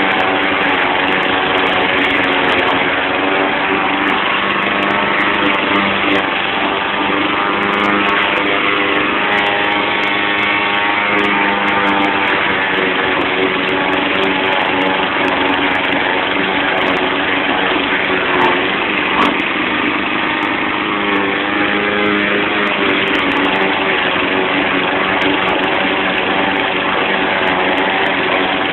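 YardMan 21-inch push mower's 159cc PowerMore single-cylinder gas engine running steadily while mowing, its pitch dipping and recovering slightly now and then.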